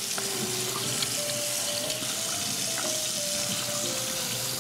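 Kitchen tap running steadily into a stainless steel sink, the stream splashing through a plastic colander as grasshoppers are rinsed by hand.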